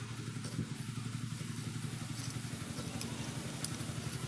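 An engine or motor running steadily with a fast, even low pulse, like an engine at idle.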